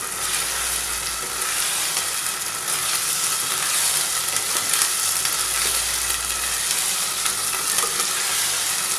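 Fried onions with ginger-garlic paste and salt sizzling steadily in hot oil in a pan, stirred now and then.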